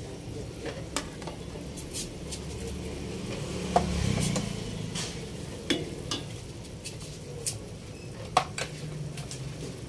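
Stainless-steel ladle stirring okra into a pot of simmering sinigang broth, with scattered sharp clinks of the ladle against the pot over a steady bubbling.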